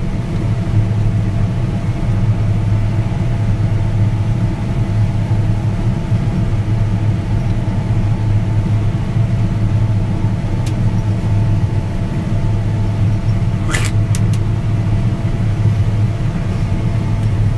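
Combine harvester's diesel engine running steadily at a constant speed, a loud even hum. There is a brief sharp noise about fourteen seconds in.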